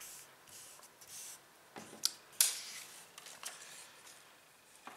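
Paper rustling as a printed sheet is slid and lifted off a pad of paper, in a few short rustles with a sharp tick about two seconds in.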